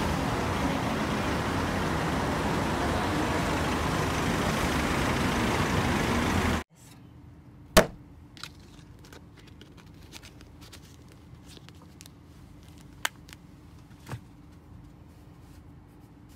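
Steady noise of road traffic at a busy city street, which cuts off suddenly after about six and a half seconds. It gives way to a quiet car cabin with a faint low hum and a few sharp clicks and knocks, the loudest about a second after the cut.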